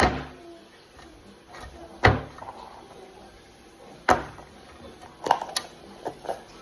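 A series of sharp knocks and clacks of hard objects being handled and set down, about every two seconds, with several quicker ones near the end.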